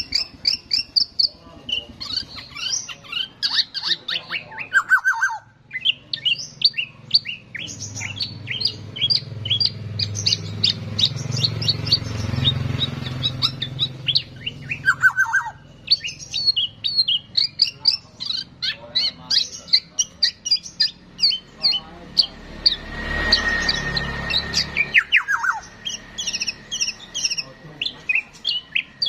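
A songbird singing a fast, varied string of short chirps and whistles, with a couple of brief pauses. A low rumbling noise swells twice in the background.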